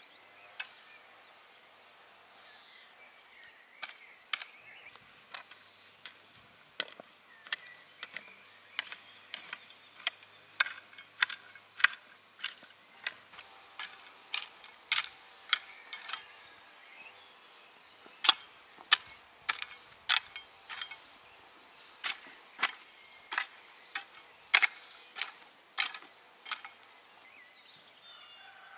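Metal garden hoe chopping and scraping into soil, sharp irregular clicks about one to two a second starting a few seconds in, as earth is drawn over seed potatoes laid in the furrows.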